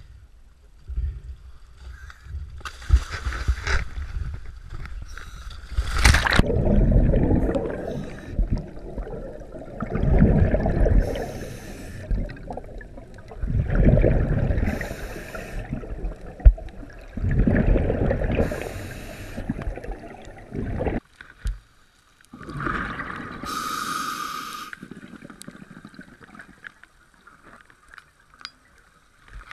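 Scuba diver breathing underwater through a regulator: bubbling bursts of exhaled air about every four seconds, with a hiss from the regulator on the breaths in.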